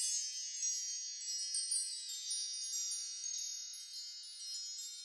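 Bright, high chimes ringing together in a shimmering wind-chime sparkle, slowly fading, with fresh notes struck here and there.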